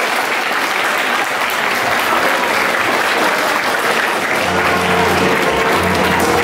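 Audience applauding steadily. About four seconds in, music with a bass line starts up under the clapping.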